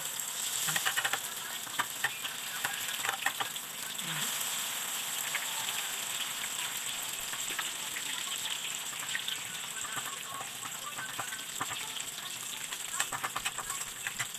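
Hot cooking oil sizzling loudly in a frying pan as food is spooned in, then frying steadily with a dense hiss and scattered pops and crackles.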